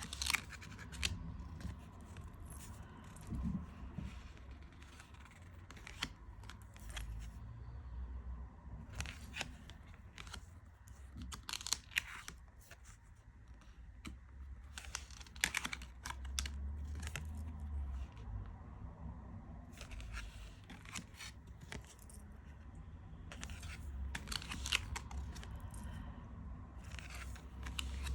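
Tarot cards being handled and flipped one at a time, paper-on-paper slides and soft snaps at irregular intervals, over a low room rumble.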